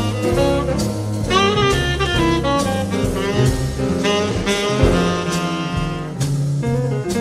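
Live small-group jazz: a saxophone plays a lead line with bent notes over upright bass and drum kit with cymbals.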